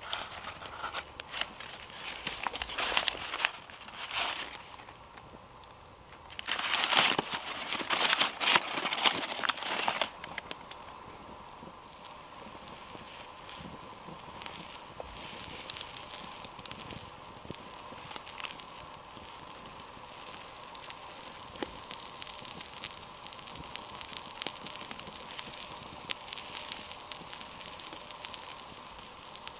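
A paper bag crinkling and rustling in bursts for about the first ten seconds, then a steady sizzle with fine crackles as pancake batter fries in butter in a pan over a wood campfire.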